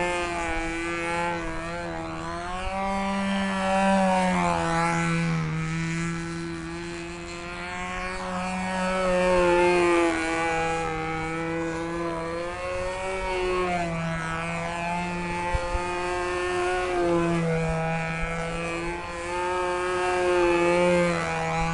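Two-stroke glow engine of a control-line stunt model plane running at full speed, a steady high buzz whose pitch and loudness swell and fade every few seconds as the plane circles and manoeuvres.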